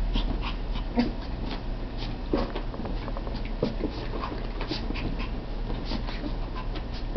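Papillon puppy whimpering with a few short whines while excited at play, among many quick clicks and scuffles.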